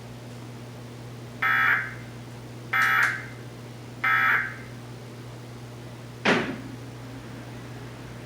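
Emergency Alert System end-of-message signal: three short bursts of SAME digital data tones, about 1.3 seconds apart, marking the end of the test. About six seconds in comes a single sharp pop, over a steady low hum.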